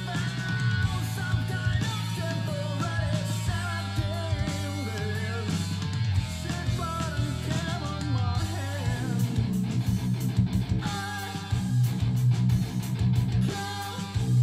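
Electric guitar played through an amplifier: a lead melody with bent, wavering notes over steady low notes, turning to choppier strummed playing over the last few seconds.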